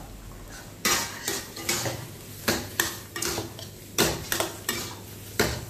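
Two steel ladles clanking and scraping against a steel wok as fried noodles are tossed. About a dozen sharp, irregular strikes start about a second in.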